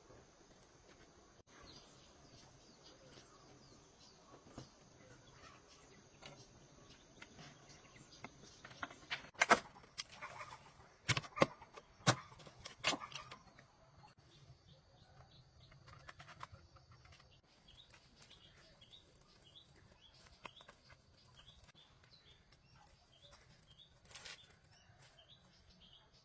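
Birds chirping faintly, with a cluster of five or six sharp knocks or clacks about ten to thirteen seconds in.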